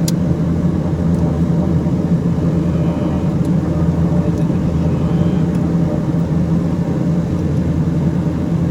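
Beechcraft King Air's twin Pratt & Whitney PT6A turboprop engines running with a steady low drone.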